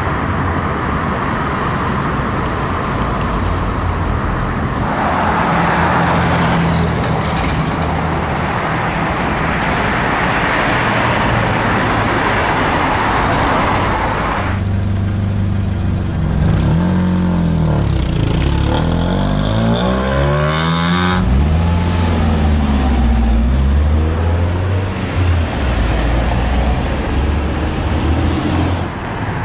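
Car traffic on a street: engines running and cars driving past, with a steady hiss. In the middle an engine's pitch rises and falls several times as vehicles accelerate or pass.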